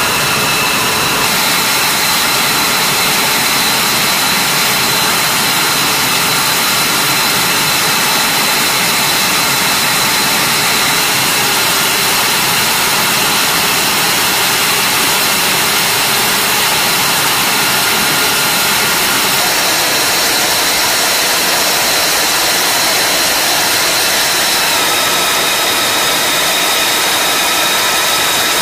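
Fighter jet engines running at idle on the flight line: a steady loud rush with a high, held turbine whine whose pitch shifts slightly a few times.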